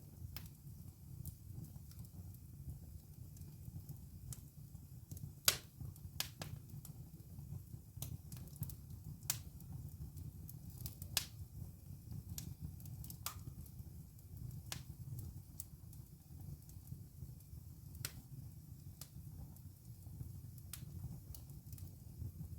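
Wood fire in a fireplace crackling, with irregular sharp pops over a steady low rumble; the loudest pop comes about five seconds in.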